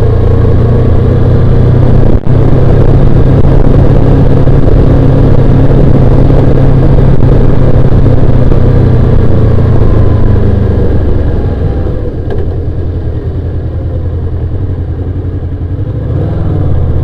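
Honda VFR800X Crossrunner's V4 engine running at road speed, mixed with wind and road noise on the bike-mounted camera's microphone. The sound drops off about eleven seconds in and rises again near the end as the engine pulls harder.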